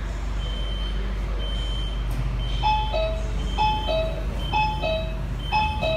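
Metro train door warning chime on a CRRC Zhuzhou electric multiple unit: a high beep repeating, then from about halfway a two-note high-low chime sounding about once a second, over the steady rumble of the train.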